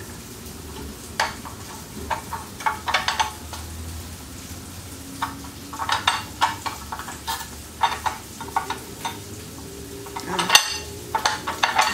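A small cast iron mini stove being handled while its door is worked open by hand: irregular metallic clicks and clinks in short clusters, busiest near the end.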